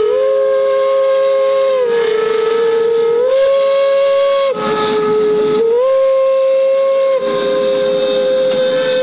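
Steam locomotive whistles sounding together: one lower tone held steady while a second, higher whistle sounds in repeated blasts of about a second and a half, with a rush of steam noise partway through.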